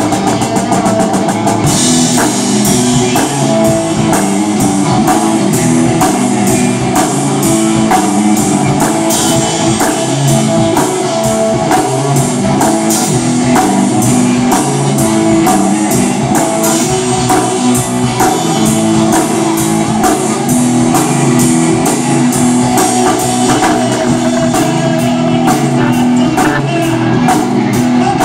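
Live rock music from a Pearl drum kit and an amplified electric guitar playing together, loud and steady, driven by a regular beat of drum and cymbal hits.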